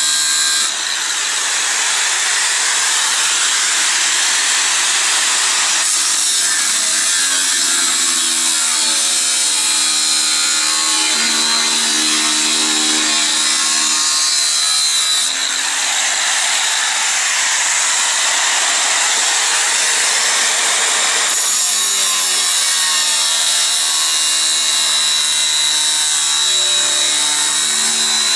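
Angle grinder cutting 6 mm steel plate: a loud continuous grinding hiss over the motor's whine. The motor's pitch drops and climbs back several times, and the hiss changes character about every six seconds.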